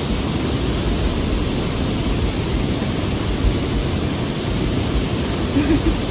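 Waterfall and river rapids rushing: a steady, even wash of water noise.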